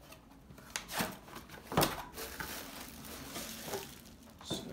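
A small cardboard box being opened and a metal lens-port extension ring in its plastic wrapping being pulled out. The handling gives rustling and crinkling with a few sharp knocks, the loudest about two seconds in.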